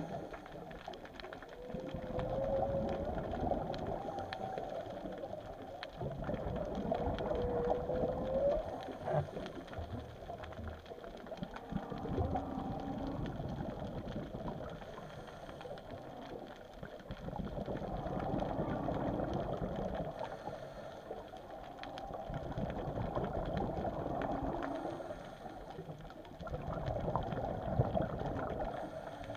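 Whale song heard underwater: long calls that glide up and down in pitch, swelling and fading every several seconds, over a steady crackle of fine clicks.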